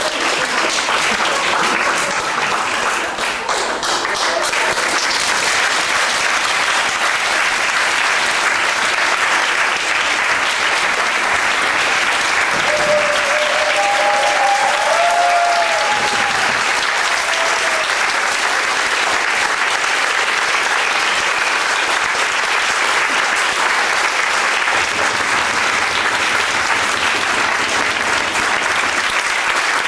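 Audience applauding steadily, with a brief voice rising over the clapping about halfway through.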